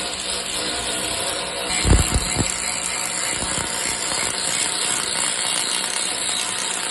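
A power tool running steadily, with a few low knocks about two seconds in.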